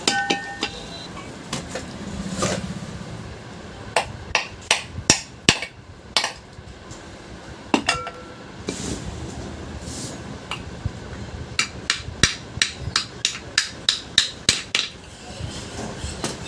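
Hammer blows driving a new ball bearing into a ceiling fan's housing: a few scattered strikes, then two runs of quick, sharp blows, one about four seconds in and another in the last few seconds.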